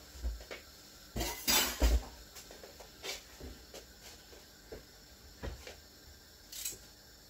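Kitchen clatter of utensils and dishes being handled on a counter: a few knocks and clinks, loudest in a cluster about one and a half to two seconds in, then scattered lighter taps.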